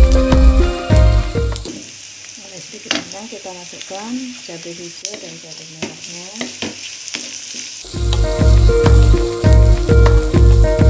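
Sliced onion, galangal and chillies sizzling in a hot oiled wok while a wooden spatula stirs them, with scattered scrapes and clicks. A louder backing track with a steady beat plays over it, dropping out for several seconds in the middle.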